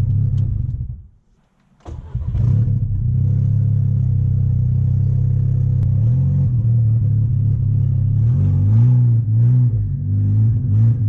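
Built MK6 Golf R's turbocharged 2.0 four-cylinder engine shut off and going quiet for about a second, then started again and idling. Over the last few seconds it gives several short revs that rise and fall. The engine is running choppy and won't rev properly, with a crankshaft–camshaft position correlation fault that the owner thinks means the cam timing is off.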